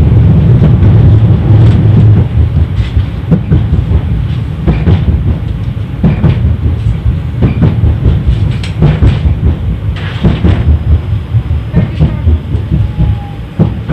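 71-931 Vityaz tram running along the track, heard from inside: a steady low rumble with irregular clacks and knocks of the wheels over the rails. It is loudest in the first couple of seconds and a little quieter after that.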